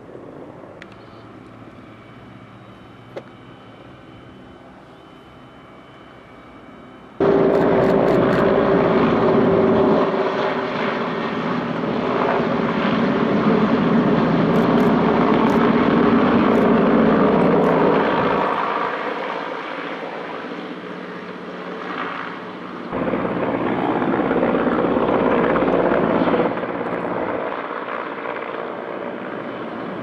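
Firefighting helicopter: loud rotor and engine noise that starts abruptly about seven seconds in and runs on with several sudden jumps in level, after a fainter steady engine hum.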